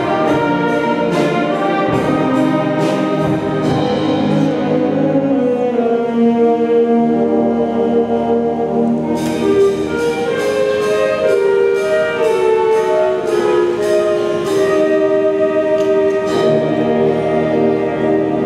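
School concert band playing: flutes, saxophones and clarinets carry held melody notes over brass, with drum kit and cymbal strokes keeping an even beat.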